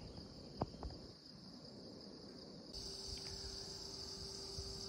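Steady high-pitched chirring of insects, which gets louder about three seconds in, when a faint low steady hum also starts.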